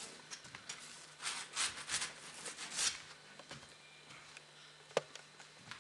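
Paintbrush scrubbing on canvas in a quick run of short rasping strokes, then a few fainter strokes, with a single sharp tap near the end.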